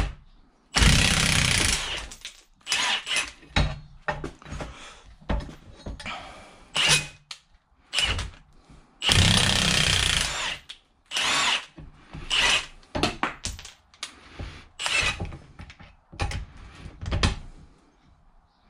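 A power tool driving a ball joint press screw to push worn wheel studs out of a Jeep Dana 44 rear axle shaft flange. It runs in repeated trigger bursts: two longer runs of over a second, about a second in and about nine seconds in, and many short blips between them.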